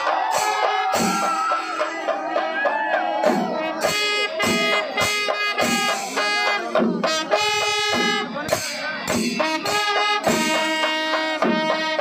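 Music with brass horns playing held notes in short phrases over sharp percussion strokes.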